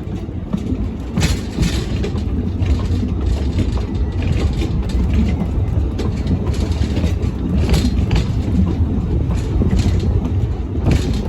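Narrow-gauge train running along the line: a steady low rumble with irregular clicks of the wheels over the rail joints.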